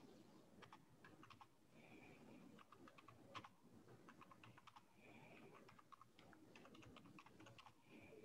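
Faint typing on a computer keyboard: quick, irregular key clicks, several a second, broken by short pauses, with one sharper click a little past three seconds in.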